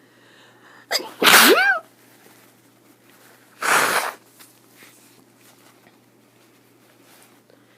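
A person sneezing twice: a loud, voiced sneeze about a second in, then a second, breathier sneeze a couple of seconds later.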